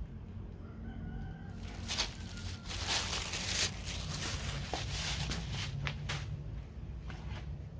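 A rooster crowing, starting about a second and a half in and lasting a few seconds, over a steady low hum.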